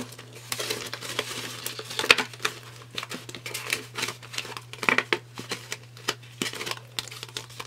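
Paper banknotes and a paper envelope rustling and crinkling as folded bills are handled and put into the envelope, with many short crinkles and light clicks, over a steady low hum.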